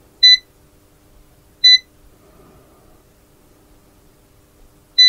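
Venlab VC-600D clamp meter giving its key-press beep as its FUNC button is pressed to step through its modes toward diode test. There are three short, high, single-pitch beeps: two about a second and a half apart, and a third near the end.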